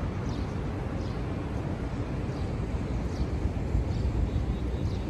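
Steady low rumble of ambient background noise, with faint high ticks repeating about every three-quarters of a second.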